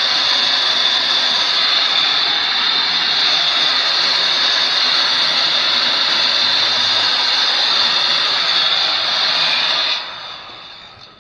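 Old electric heat gun running steadily, a loud rush of blown air with a high whine, used to dry the metal. It is switched off about ten seconds in and winds down.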